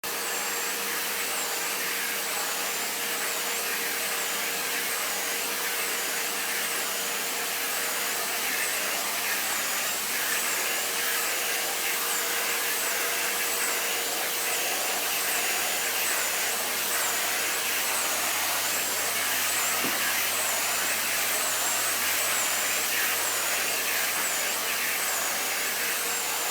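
Vacuum cleaner running steadily with its nozzle drawn over a Siberian cat's fur; a high whine in the suction dips about once a second as the nozzle strokes.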